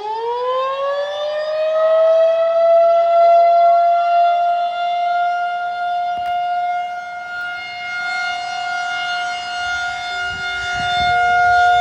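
Federal Signal 2001-SRN electromechanical outdoor warning siren winding up: its pitch climbs quickly and levels off about two seconds in, then holds the steady Full Alert tone, its loudness slowly rising and falling. Heard from inside a car.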